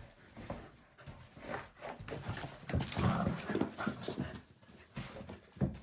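Dogs playing with a big ball: dog vocal sounds mixed with scuffling and irregular knocks, busiest about three seconds in.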